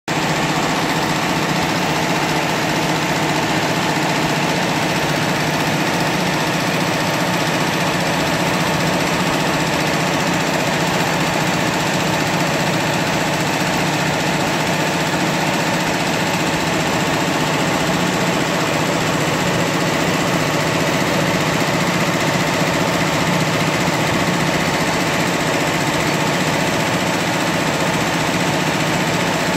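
Tajima multi-needle commercial embroidery machine running at speed, its needle bar stitching steadily in a continuous mechanical rattle.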